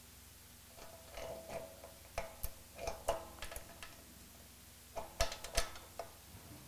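Light metal clicking and clinking as a rocker shaft with its rocker arms is slid onto the cylinder-head studs of an AeroVee engine and the arms are seated on the push rods. The clicks come in a run from about a second in to nearly four seconds, then again about five seconds in.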